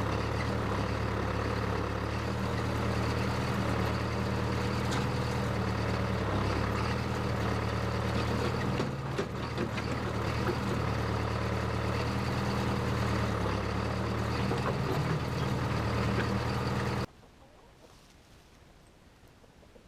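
Case 580CK backhoe's engine running at a steady speed, which cuts off suddenly near the end.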